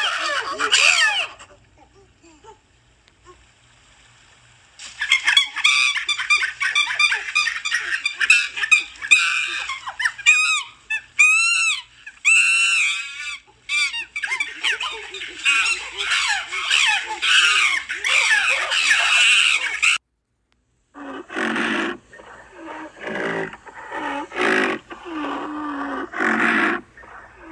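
Animal calls: after a quiet start, a long run of rapid, high calls that rise and fall in pitch, then after a sudden second of silence a series of lower, repeated calls.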